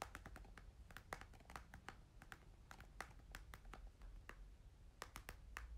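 Near silence: room tone with a low hum and faint, irregular light clicks, a few a second.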